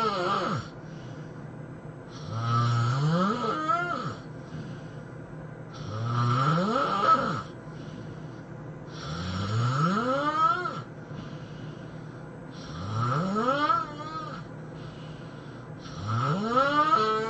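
A man snoring loudly and rhythmically: five long, rasping snores about three and a half seconds apart, each rising sharply in pitch.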